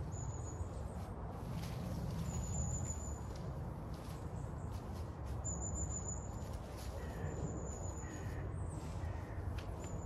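Rustling and footsteps in fallen leaves as gear is handled around a tent, while a bird gives a thin, high call about every two seconds, with a few short lower calls near the end.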